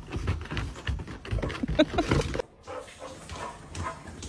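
A dog making rough, rapid vocal noises, then an abrupt cut about halfway through to a quieter stretch with a few faint high whines.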